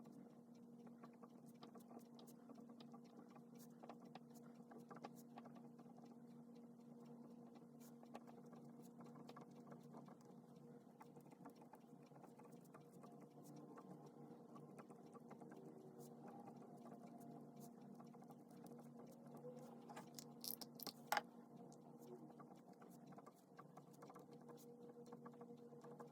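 Faint pen scratching on paper in short irregular strokes, over a steady low electrical hum, with one sharper tap about twenty seconds in.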